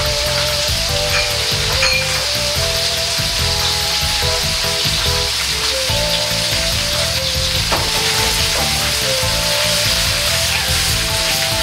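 Sliced chicken sizzling steadily in hot oil in a black iron wok.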